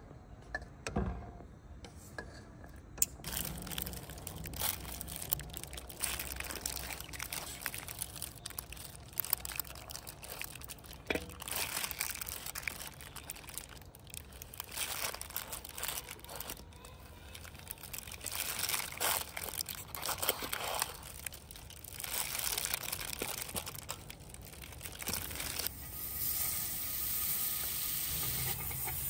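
Water pouring and splashing in uneven surges, with clicks and knocks of kitchen handling. Near the end it gives way to a steadier hiss.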